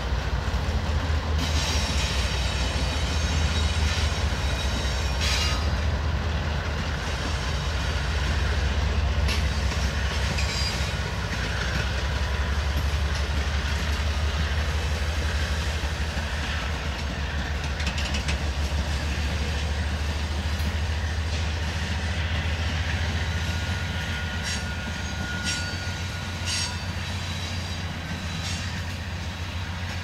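Freight train rolling past close by: the rebuilt GE AC4460CW (C44ACM) locomotive's rear goes by at the start, then tank cars follow with a steady low rumble and scattered clicks of wheels over rail joints. A thin, high wheel squeal comes in for a few seconds past the middle.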